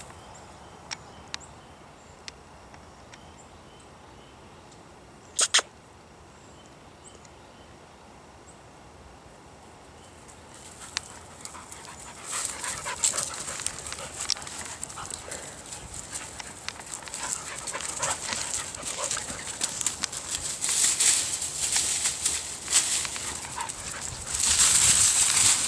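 A beagle puppy and a larger dog playing on a lawn. There is one sharp sound about five seconds in, then from about halfway a busy scuffling of paws running through the grass that grows louder toward the end.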